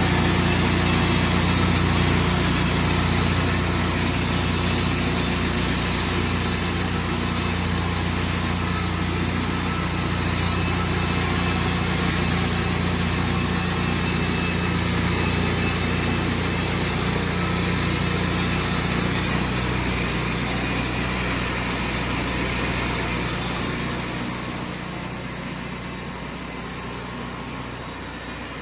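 Wood-Mizer band sawmill running with a steady engine hum, which drops off and gets quieter near the end.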